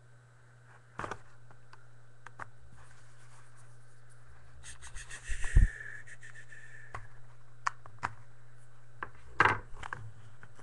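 Shrink wrap on a cardboard trading-card box being slit and torn off by hand: scratching and crinkling with scattered sharp clicks. A rasping stretch ends in a heavier tap about five and a half seconds in, over a steady low hum.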